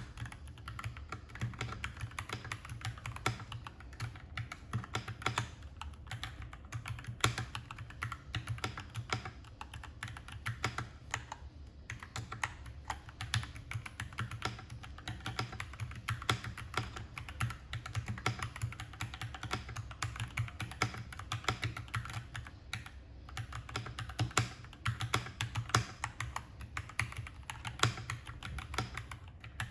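Fast, continuous typing on a Keychron K4 V2 aluminium-case keyboard with stock Gateron Red linear switches and EnjoyPBT ABS doubleshot keycaps, a dense stream of key clacks with a couple of brief pauses. A steady low hum sits underneath.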